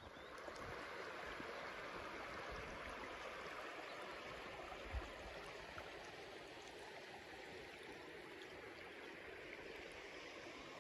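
Shallow river running over a stony bed: a steady rush of water, with a brief low thump about halfway through.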